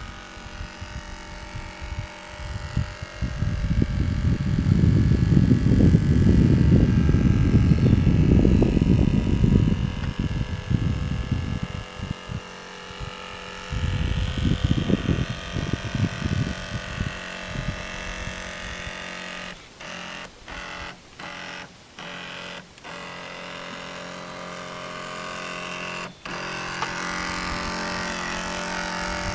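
Small electric motor of a toy RC tugboat humming steadily as it cruises, growing louder near the end as the boat comes close. Irregular low rumbling covers it in the first half, loudest between about 3 and 10 seconds in.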